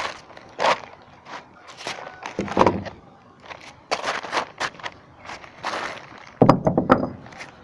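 Footsteps on a concrete roof with rustling handling noise, and a louder run of knocks and scuffs about six and a half seconds in.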